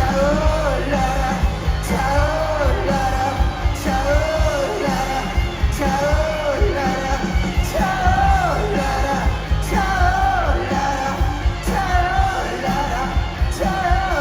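Live rock band playing a song with a sung lead vocal, its melodic phrase rising and falling about every two seconds over drums and bass.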